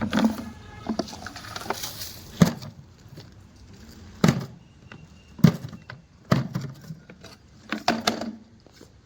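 Hard objects being handled and set down: about eight irregular knocks and clicks, the sharpest about two and a half, four and a quarter and five and a half seconds in.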